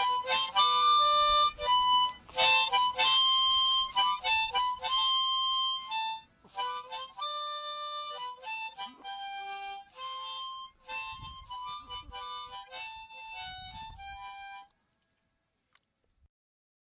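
Harmonica playing an old-time tune in a run of separate notes, some held and some quick. It stops abruptly about fifteen seconds in.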